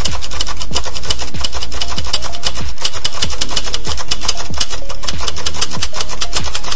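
Loud electronic music with a fast, driving beat and repeated falling bass sweeps.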